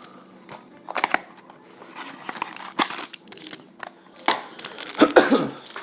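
A trading-card pack being opened by hand: the wrapper crinkles and tears in short, irregular crackles, the busiest about five seconds in.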